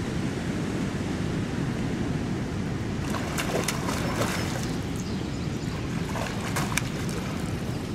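Wind buffeting the microphone, with a hooked fish thrashing and splashing at the water's surface in the shallows: a cluster of splashes a few seconds in and another near the end.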